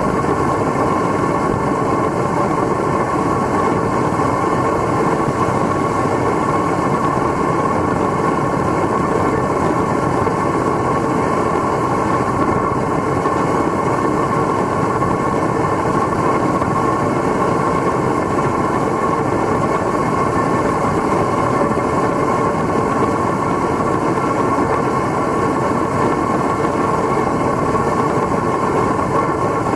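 Homemade forced-air foundry burner firing, a loud steady rushing noise that holds without change.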